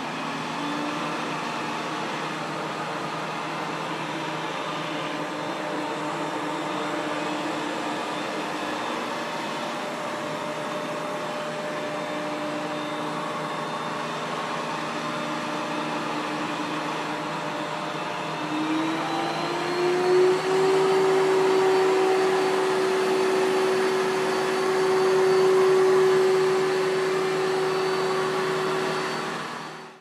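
ECOVACS DEEBOT N30 PRO OMNI robot vacuum running on the Strong suction setting, a steady whirring whine over a hard floor. About two-thirds of the way through, the fan's tone glides up in pitch and the whine gets louder.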